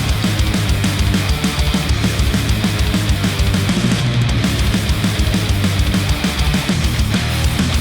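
Loud, fast heavy rock music with a quick, steady drum beat, played back through headphones and picked up by microphones at the earcup.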